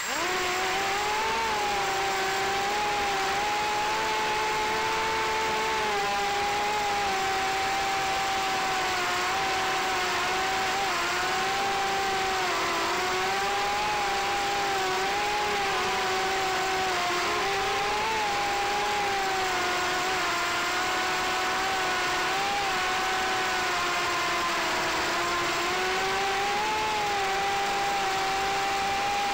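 FPV racing drone's electric motors and propellers whining loudly, heard from the drone's own camera. They spin up suddenly at the start and then hold a steady buzzing whine whose pitch wavers up and down with the throttle.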